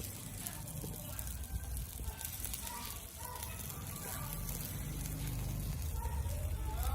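Faint distant voices over a steady low rumble, with a short rising sound near the end.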